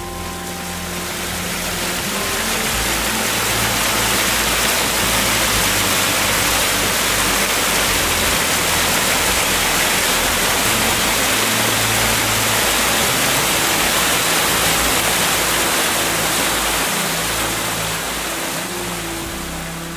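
Rushing water of a rocky mountain stream and waterfall cascade: a dense, steady rush that swells up over the first few seconds and eases down again near the end.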